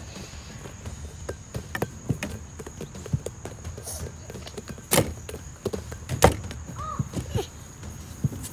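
Scattered knocks and thumps from children playing with a small ball close by, with two sharper knocks about five and six seconds in, over a steady high insect buzz.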